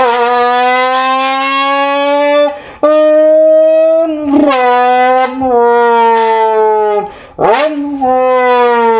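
A human mouth imitation of a Ferrari Enzo V12 engine, voiced through an empty aluminium soda can: a loud, buzzing, horn-like drone. Its pitch climbs slowly within each stretch, broken by brief drops about 2.5, 4, 5 and 7 seconds in. About 7.5 seconds in there is a sharp dip and jump in pitch.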